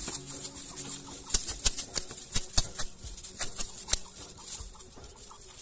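Irregular sharp clicks and crackles of dry wheat stalks and grain being threshed by hand.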